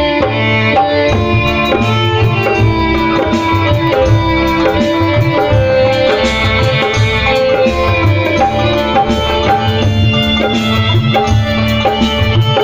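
Instrumental break in a Bengali baul song played live: an electronic keyboard holds the melody over a steady hand-drum rhythm.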